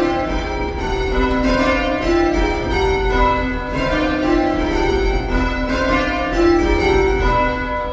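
Church tower bells being rung in change ringing, one bell sounding after another at an even pace in continuous rows, heard from the ringing chamber below the bells.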